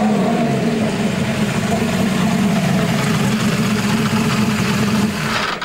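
Reynard 92D Formula Holden's Holden V6 engine idling steadily at low revs.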